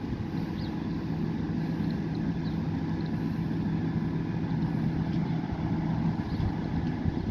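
Peterbilt 520 garbage truck's engine running with a steady low hum.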